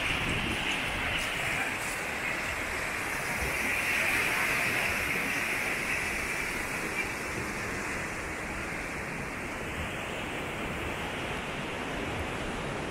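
Steady rushing of waves breaking on a beach, swelling a little about four seconds in.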